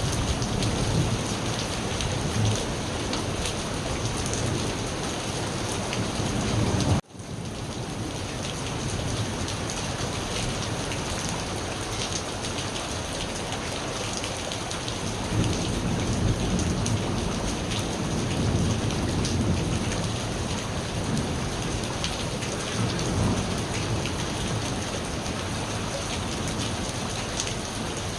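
Steady heavy rain pattering on surfaces, with low rolling thunder rumbling underneath that swells near the start and again about halfway through. The sound cuts out for a split second about seven seconds in, then resumes.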